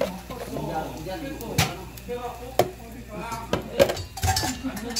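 A spoon clinking against dishes and a metal seasoning container: about half a dozen sharp clinks, the loudest about four seconds in, as ground seasoning is spooned onto a bowl of soup.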